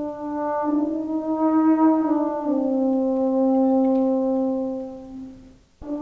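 A euphonium plays a slow, lyrical solo folk melody, one note at a time. The phrase ends on a long held low note that fades away, followed by a short pause.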